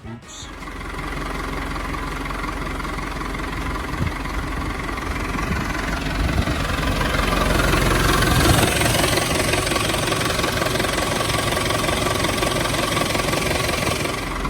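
JCB 3CX backhoe's diesel engine running steadily, growing louder for a few seconds in the middle.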